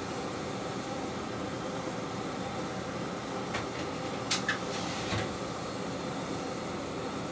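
Diesel railcar standing still with its engine idling, a steady hum heard from on board. A few short clicks come about three and a half to five seconds in.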